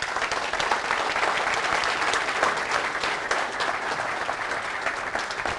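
Audience applauding at the close of a lecture: many hands clapping at once, dense and steady.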